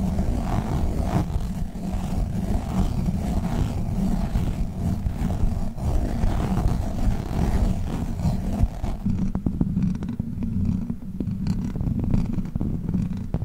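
Close-miked handling of squishy Globbles toys, squeezed and rubbed right at the microphone, a dense low rumble. About nine seconds in it changes to witch-finger toy sounds, the rumble going on under sharp little clicks and taps.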